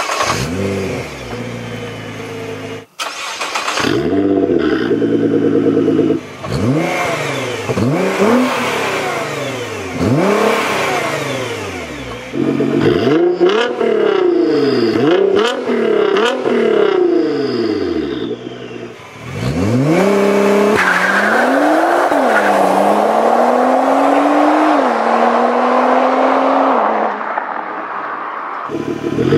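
2014 Nissan GT-R's 3.8-litre twin-turbo V6 exhaust, heard in turn on the stock system and on a catless straight-pipe Armytrix system. The car is revved hard from standstill again and again, each rev a sharp rise and fall in pitch. About two-thirds of the way in it launches and pulls away under full throttle, rising in pitch and dropping at each of three upshifts.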